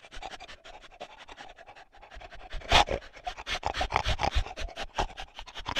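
An animal breathing in quick, short, panting puffs through the nose and mouth. The puffs grow louder after about two seconds, with a sharp snort near three seconds and another at the end.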